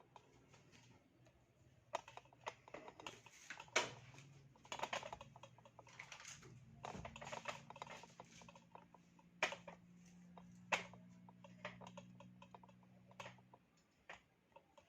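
Irregular clicking and tapping, some in quick runs, over a faint steady hum that stops about a second before the end.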